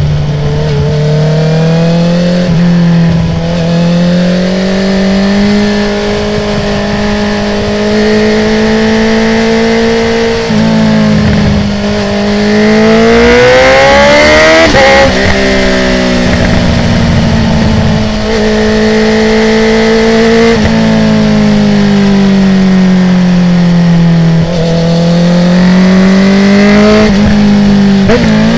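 Honda CB650R inline-four motorcycle engine, breathing through a full Akrapovic exhaust with the dB killer removed, revving up and down while being ridden through bends. It climbs hard to a high-revving peak about halfway, and the pitch drops sharply several times as gears change or the throttle closes.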